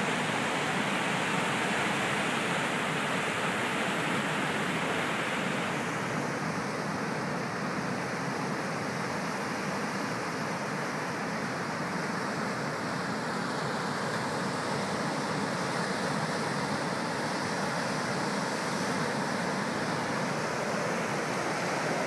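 Ocean surf breaking and washing ashore: a steady rush of water, whose higher hiss eases about six seconds in.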